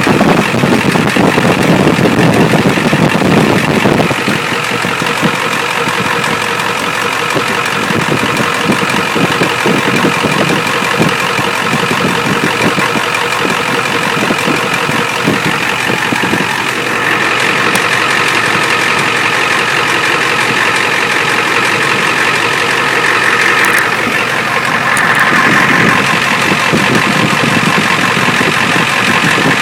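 Ford 7.3 L IDI V8 diesel idling steadily with a dense, rapid knocking clatter, its tone shifting a few times. The owner is not sure whether the engine has a slight miss or runs normally.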